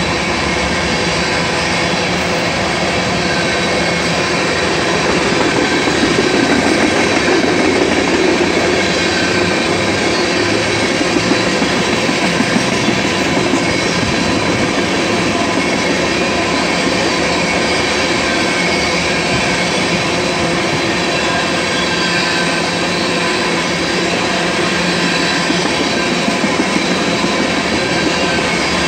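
Loaded ethanol tank cars of a fast freight train rolling past: a steady roar of steel wheels on rail, with steady high whining tones over it. It swells slightly a few seconds in, and there are a few sharp clacks partway through and near the end.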